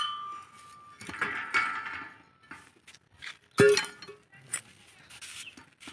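Iron hand-pump parts and tools clinking and clanking as the pump head is taken apart: a ringing metal note fading in the first second, a run of clinks, then one sharp metal knock about three and a half seconds in, the loudest sound, followed by lighter clicks.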